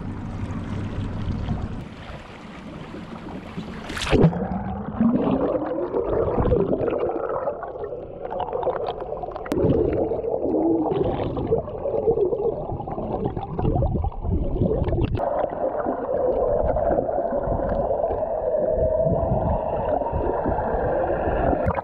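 An action camera is dunked into the sea on a pole: a splash about four seconds in, then its microphone goes muffled underwater, with gurgling and sloshing water against the camera housing.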